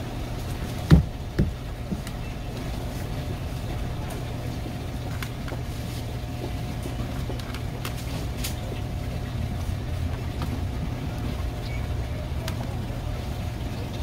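Steady low machine hum with a sharp knock about a second in, a smaller knock just after, and faint scattered taps.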